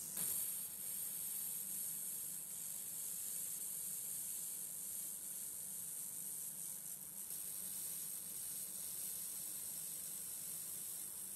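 A faint, steady high hiss, opening with a short click; the hiss eases slightly about seven seconds in.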